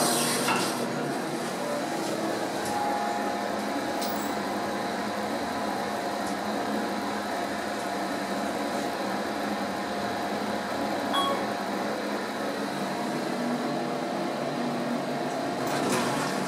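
Otis hydraulic elevator car travelling between floors: a steady hum with faint tones running under it, and the car doors starting to open near the end.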